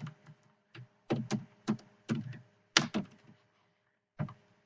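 Typing on a computer keyboard: short, irregular runs of keystrokes with brief pauses between them.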